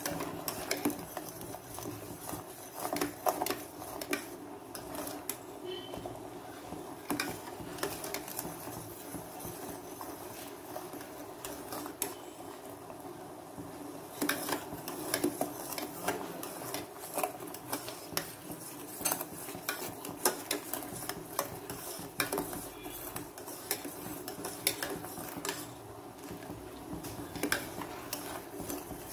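Steel spoon stirring melted jaggery syrup in a metal pan: irregular scraping and clinking of metal on metal, with clusters of sharper knocks now and then.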